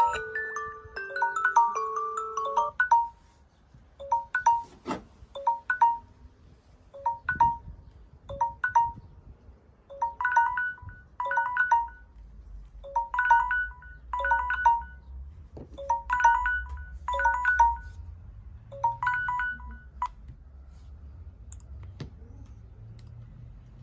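Samsung Galaxy phone tones. A chime-like ringtone melody finishes a few seconds in. A different tone follows: a short cluster of bright pitched notes repeating about once a second, growing fuller about halfway through, then cutting off about 20 seconds in.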